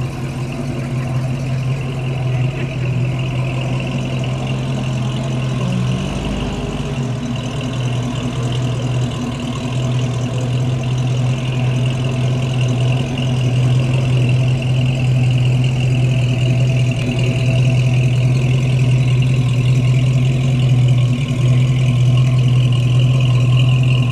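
Ford Torino fastback's engine idling with a steady low exhaust rumble through dual tailpipes, with one short low surge about six seconds in; it grows gradually louder toward the tailpipes.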